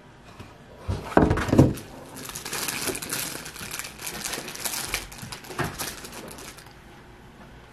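A cardboard takeout box handled with a couple of loud bumps about a second in, then wrapping crinkling for several seconds as the box of sugar cookies is opened.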